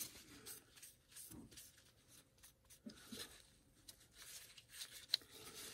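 Faint rubbing of a paper towel wiped over a steel knife blade to strip off nail polish after acid etching, with a few light clicks.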